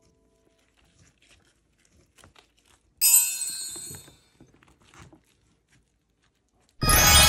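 Salted napa cabbage halves being pressed and packed into a plastic container: soft rustling and crunching of the wet leaves, with a sudden loud crackling crunch about three seconds in that fades within a second. Near the end a loud rush of liquid being poured starts.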